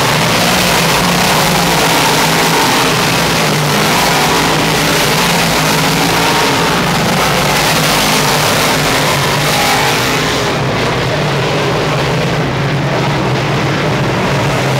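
A pack of big-block dirt Modified race cars with V8 engines running hard around the track in a loud, continuous engine din. It eases slightly about ten seconds in and comes back up near the end.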